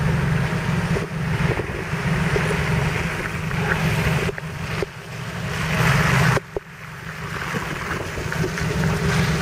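Low, steady rumble of an idling 4x4 engine under gusty wind buffeting the microphone, with two short drops in level about four and a half and six and a half seconds in.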